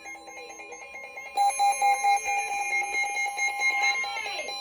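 Emergency Alert System alarm tone announcing a Special Marine Warning: an electronic beeping tone that pulses, then jumps louder and turns steady about a second and a half in.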